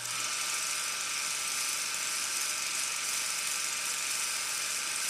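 Steady, unbroken hiss, strongest in the high pitches, with no clear pattern or pauses.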